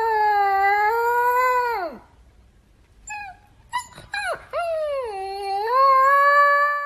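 A black-and-white husky-type puppy howling. One long howl trails off and drops in pitch at about two seconds, then come a few short yips, then a second howl that dips and rises again and is held.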